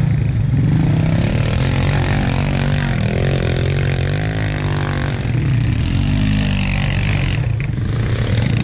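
Honda ATV engines: one idles steadily close by while others rev up and down, climbing a sand bank, with the revving strongest between about two and six seconds in.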